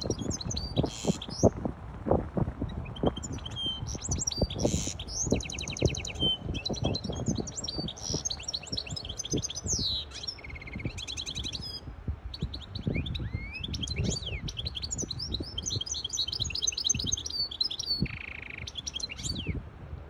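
Goldfinch hybrid (goldfinch × canary mule) singing a long, varied song of fast twittering trills, buzzy runs and rapid repeated notes, with only brief pauses. Irregular low thumps sound underneath.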